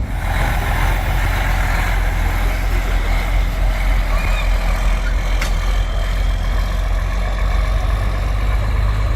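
Heavy diesel truck engine running steadily with a deep low rumble, and one sharp click about five and a half seconds in.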